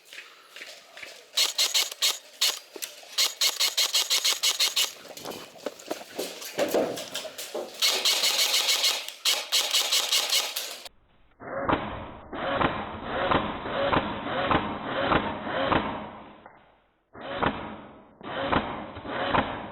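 Rapid, dense runs of airsoft gunfire, with many shots a second in long bursts. The sound changes about eleven seconds in, to a duller, more muffled recording of the same rapid clicking.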